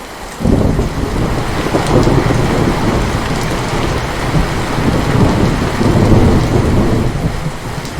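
Steady rain with a long roll of thunder that breaks in about half a second in and keeps rumbling, swelling and easing, under the rain.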